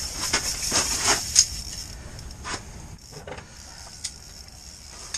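Spinning reel on an ultralight ice-fishing rod being cranked to bring the line up, a quick rattling whir during the first two seconds, followed by a few sharp handling clicks.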